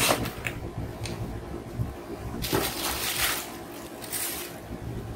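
Rustling and handling of cardboard firework boxes and a plastic-shrink-wrapped pack as they are moved about in a carton, with a few short crinkly rustles, the clearest about two and a half seconds in and again near four seconds.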